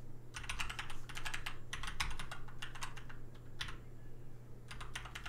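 Typing on a computer keyboard in quick runs of key clicks, with a pause of about a second before it resumes near the end.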